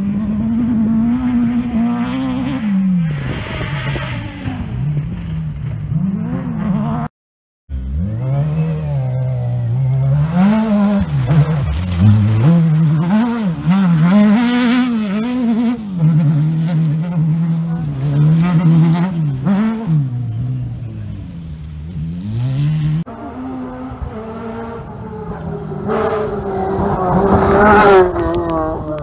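Rally cars at full effort on a loose stage, engines revving up and dropping back over and over through gear changes and corners. The sound cuts out briefly about seven seconds in, and the loudest, highest-revving pass comes near the end.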